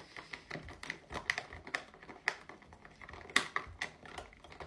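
Clear plastic makeup packaging being handled and rummaged through: irregular light clicks and crinkles, the sharpest click about three and a half seconds in.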